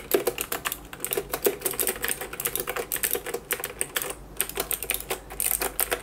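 Fast typing on a James Donkey 619 mechanical keyboard with clicky Gateron Blue switches: a quick, uneven run of sharp key clicks, with a brief pause a little after four seconds in.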